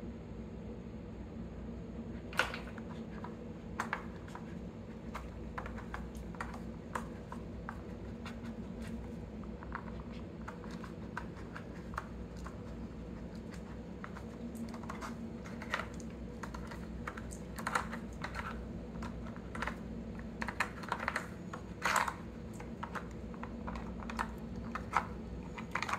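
Hard plastic lids and pegs of a dog treat puzzle clicking and clattering irregularly as a Scottish terrier noses at them, the clicks coming more often in the second half. A steady low hum runs underneath.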